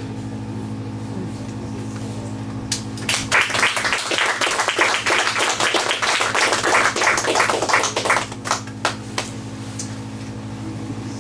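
A small audience applauding for about five seconds, starting about three seconds in and tailing off into a few last claps. A steady low hum runs underneath.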